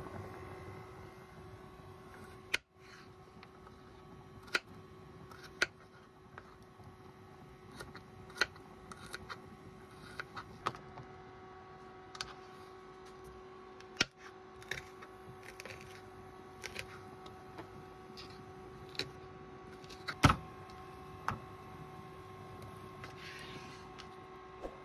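Water boiling hard in a pot at first; about two and a half seconds in, this gives way to scattered sharp taps and knocks of food and a knife on a plastic cutting board, over a steady hum.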